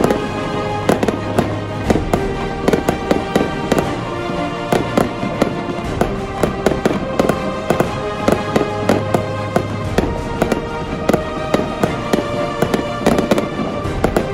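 Aerial fireworks going off in a rapid, irregular run of bangs and crackles, several a second, over background music.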